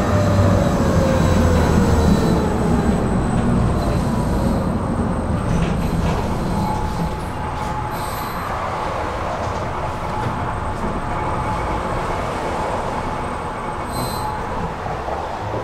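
Tram running on its rails and slowing down: the electric traction motors' whine falls in pitch over the first few seconds as the rumble eases. A steady hum then holds while it rolls on more slowly.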